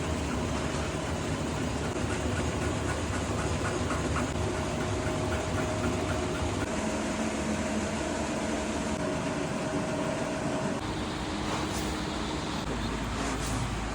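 Steady mechanical running noise with a faint steady hum through it, changing character about eleven seconds in and again near the end.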